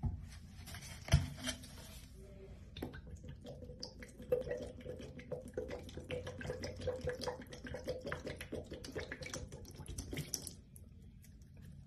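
Pine-Sol cleaner poured in a thin, steady stream from a jug into a plastic dish basin, splashing as it pools on the bottom, then stopping near the end. A single sharp knock about a second in.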